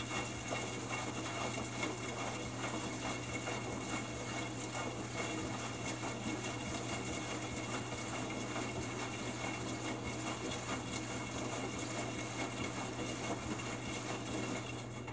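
Water splashing and sloshing inside the drum of a Samsung WF45N5300AW front-load washer during a wash cycle, with a steady low hum underneath.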